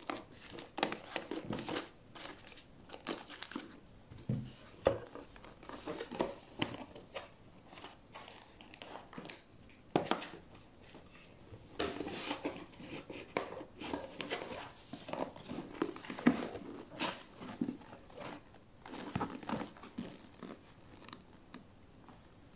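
Packaging being handled by hand: plastic wrapping crinkling and cardboard boxes rubbed, shifted and set down, with irregular rustles and a few sharper knocks.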